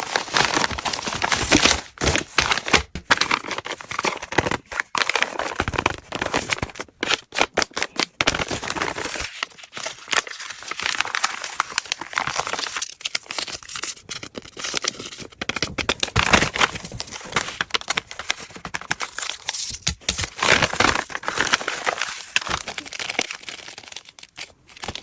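Paper crinkling and rustling, with sharp crackles, as a handmade paper blind bag is handled and opened, in irregular spells with short pauses between them.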